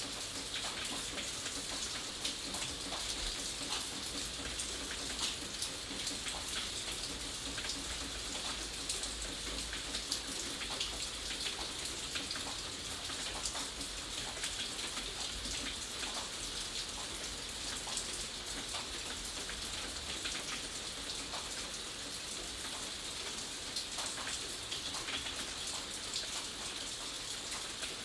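Steady rain falling, with many individual drops pattering on a hard surface over an even hiss.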